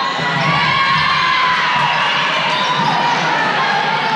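Spectators and players cheering and yelling at a volleyball point in a large gym, many high voices overlapping, rising just after the start and held throughout.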